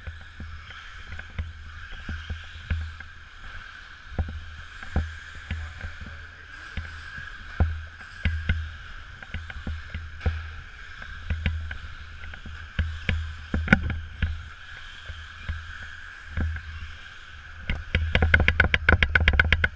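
Radio-controlled short course cars running on an indoor dirt track, heard as a steady high whine over a low rumble. Frequent sharp knocks and clicks sound close to the microphone, with a fast run of clicks near the end.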